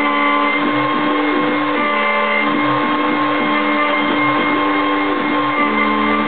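CNC router at work: a handheld router motor runs with a steady whine while its 4 mm bit cuts 3 mm deep into fibreboard, and the machine's stepper motors hum at pitches that shift and glide every half second or so as the head traces the ornament.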